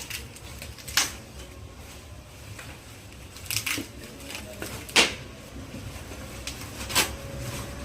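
A handful of sharp, separate knocks on a cricket bat, each a second or two apart, over a low steady background hum.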